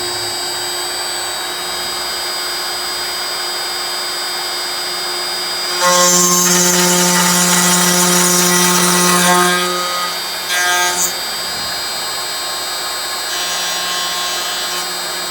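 Aluminium-profile CNC drilling and milling machine running with a steady spindle whine. About six seconds in it gets louder and harsher for about four seconds as the tool cuts into the aluminium profile, followed by a short burst of cutting a moment later.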